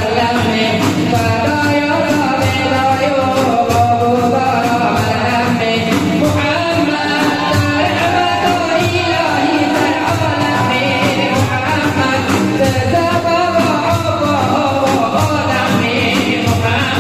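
Sufi hymn (ilahi) sung by men's voices to frame drums beating a steady rhythm.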